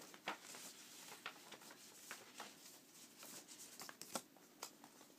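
Faint rustling and light taps of vinyl record jackets and sleeves being handled and shifted by hand, a scatter of short irregular clicks.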